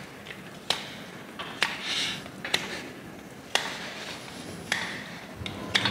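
Hoof knife working: a sharp metallic click about once a second, six in all, with soft scraping strokes in between.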